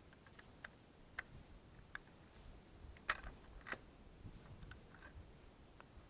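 A few faint, irregular clicks and taps of rifle and cartridge handling, the sharpest about three seconds in.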